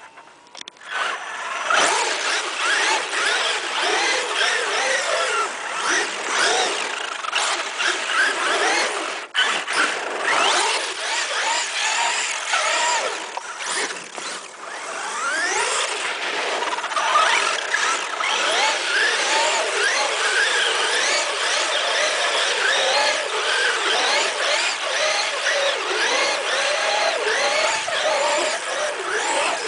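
Traxxas E-Revo RC truck's brushless motor whining, its pitch constantly rising and falling as it is throttled hard through donuts, with the tyres spinning on loose dirt. It starts about a second in and briefly drops out near the middle.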